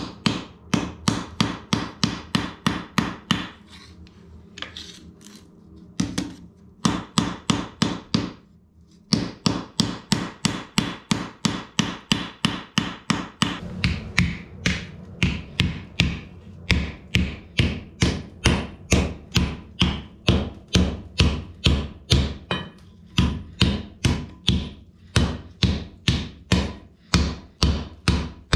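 Hand hammer striking a red-hot bloomery iron bar on an anvil, a steady run of ringing blows about two to three a second, with a quieter spell about four seconds in and a short break near eight seconds. Later blows fall on the bar held upright in a grooved swage block and sound deeper.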